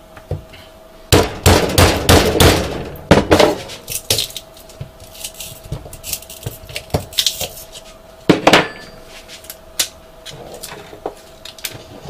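Metal-on-metal hammer strikes and prying on a microwave oven transformer's steel core, working loose the hacksawed-through secondary winding. A quick run of sharp knocks about a second in, then a few more about two thirds of the way through, with light clinks and scrapes between.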